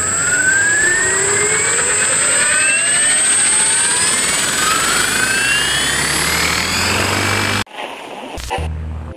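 Electric Align T-Rex 800E RC helicopter spooling up: its motor and rotor whine rises steadily in pitch as the rotors gather speed, over a steady high whine. It cuts off abruptly near the end, giving way to a low hum and crackle.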